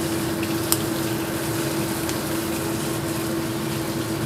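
Steady mechanical hum with an even hiss, with a single light click about three-quarters of a second in as kitchen scissors snip through grilled fish.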